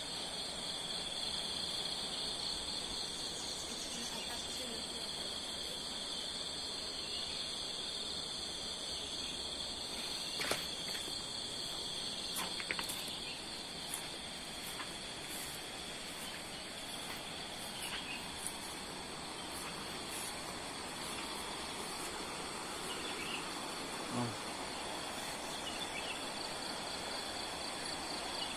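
Insects chirring in a steady, high-pitched trill that pulses rapidly, with a few faint clicks now and then.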